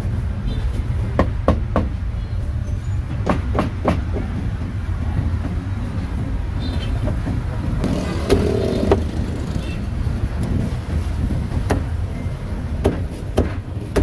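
Busy roadside street ambience: a steady low rumble of passing traffic, with scattered sharp clicks and knocks and a brief pitched sound about eight seconds in.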